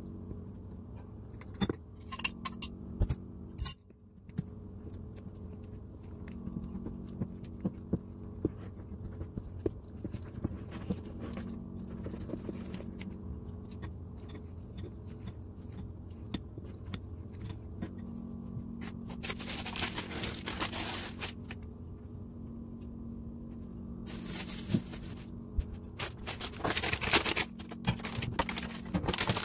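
White plastic spatula stirring thick banana-bread batter in a glass mixing bowl: scattered clicks and taps of the spatula against the glass, with two longer spells of scraping in the second half, over a steady low hum.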